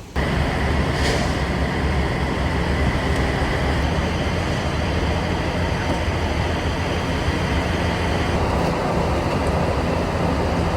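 Steady rumble and hiss of a semi truck being fuelled at a truck-stop diesel pump, starting abruptly and running on without change.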